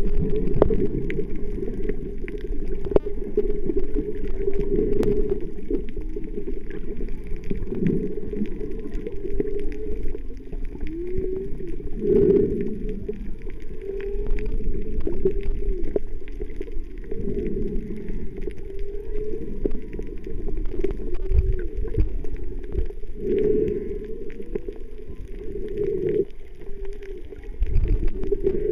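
Muffled underwater sound picked up through a camera's waterproof housing: steady water rush with low, wavering moans that slide up and down in pitch, and scattered faint clicks.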